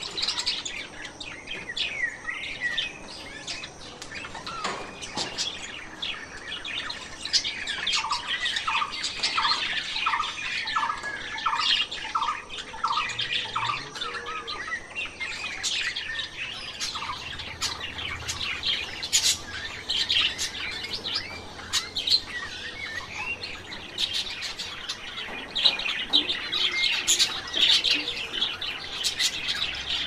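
Zebra finches and other small aviary birds chirping and calling continuously in many short, high notes, with a run of about nine lower, evenly spaced notes, about two a second, roughly a third of the way through.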